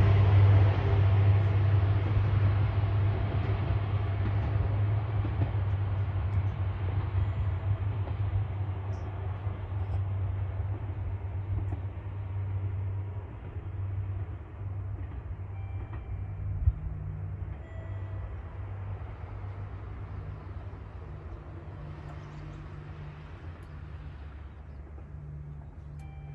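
Single-car diesel railcar running away, its low engine hum and rail rumble fading steadily. There is a single sharp click about two thirds of the way through.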